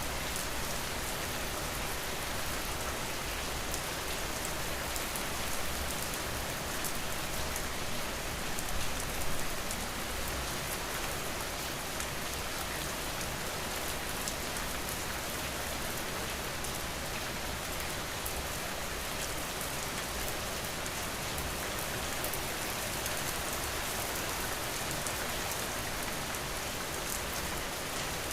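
Steady rain falling, with the patter of drops on a surface, swelling slightly about eight seconds in.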